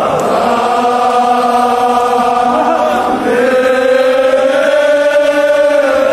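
A group of men chanting a Kashmiri marsiya (mourning elegy) together in long held notes, with a new held line starting about three seconds in.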